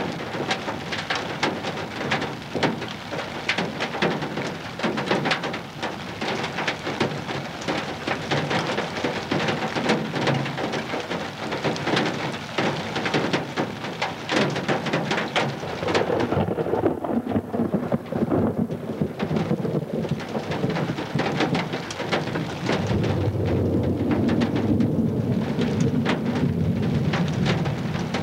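Storm wind buffeting a camcorder's built-in microphone, with a dense crackle of hits through the first half. Near the end the sound turns to a deeper, louder rumble.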